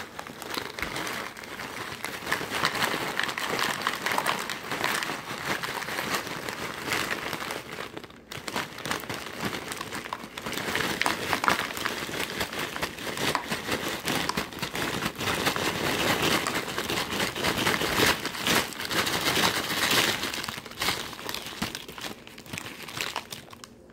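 Ridged potato chips being crushed and ground up by hand: a steady crinkling, crunching crackle, with a short break about eight seconds in.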